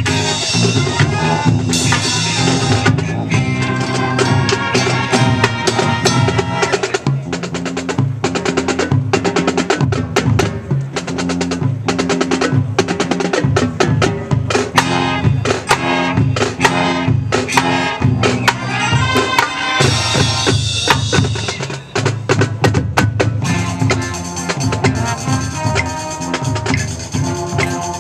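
High school marching band playing a drum feature. The battery drumline of snare, tenor and bass drums plays rapid strokes over sustained notes from the band, and the fuller horn sound comes back near the end.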